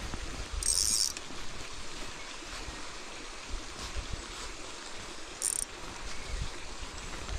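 River water flowing steadily, with two brief high hissing sounds, one about a second in and one about five and a half seconds in.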